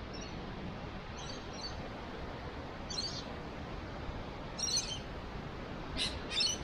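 Birds chirping: short, high-pitched calls in small clusters every second or so, the loudest pair near the end, over a steady low rush of wind.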